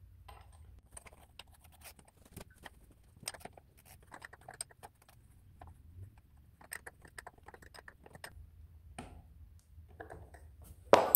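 Hex key and aluminium crank arm being fitted and tightened on an e-bike's motor spindle: scattered light metallic clicks, taps and scrapes. A sudden loud ringing hit comes at the very end.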